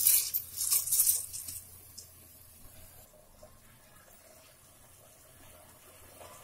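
Soaked raw rice poured from a tumbler into a pressure cooker, a rushing, hissing pour for about a second and a half, with a few faint clicks after it.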